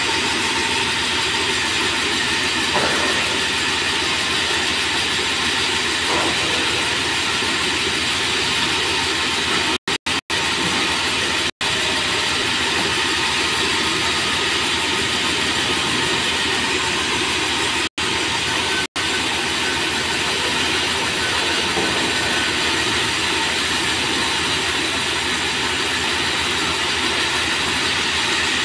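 Large sawmill band saw running and ripping Merbau hardwood planks: a loud, steady mechanical noise with no let-up, broken only by a few split-second dropouts near the middle.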